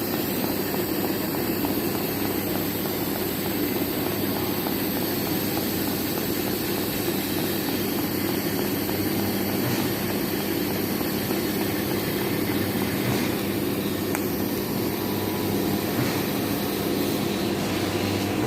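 Steady machine drone with a constant low hum and a few faint clicks, unchanging throughout.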